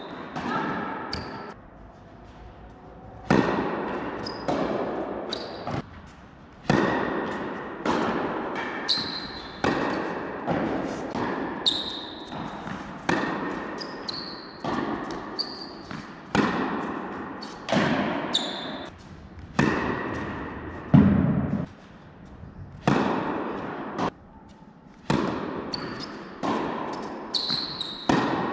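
Tennis rally on an indoor court: racket strikes and ball bounces, about one every second, each echoing through the hall, with a few short breaks between points. Short high squeaks from shoes on the court come between the hits.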